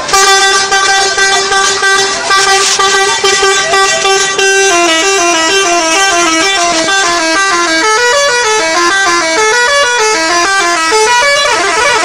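Bus "telolet" musical horn. It holds one long note for about four and a half seconds, then plays a tune of short notes stepping up and down.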